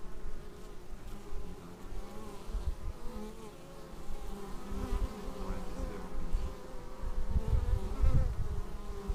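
Honeybees buzzing close by at the hive entrance: many overlapping wingbeat hums waver in pitch as bees fly in and land. Bursts of low rumble come in near the end.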